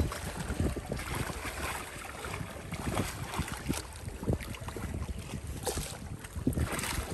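Wind buffeting the microphone, with low irregular thumps over a steady rush, and water splashing.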